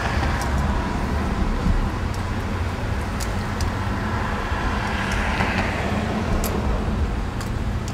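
Steady background rumble and hum of a fast-food restaurant's dining room, with a few faint ticks scattered through.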